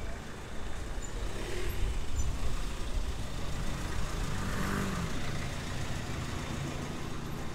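Street traffic: a motor vehicle's engine running with a steady low rumble, its hum strongest around the middle.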